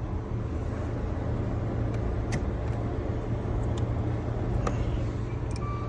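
A steady low vehicle hum, with a few faint, light clicks.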